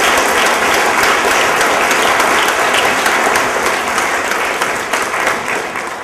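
Audience applauding: a dense, steady patter of many hands clapping, dying down near the end.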